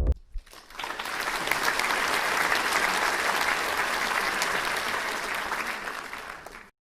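Crowd applauding: a steady, dense clapping that starts about a second in and stops abruptly near the end.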